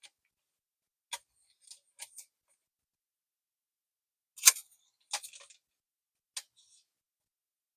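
Scattered short clicks and crinkles of plastic card sleeves and a mini portfolio's plastic pocket page being handled as a card is slid in; the loudest click comes about halfway through.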